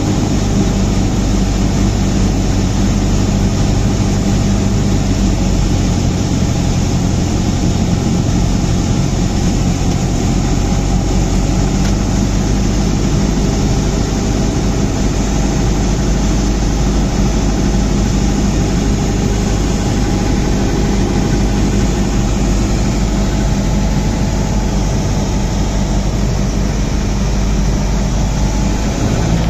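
Cessna 172's piston engine and propeller running steadily on landing approach, heard from inside the cockpit.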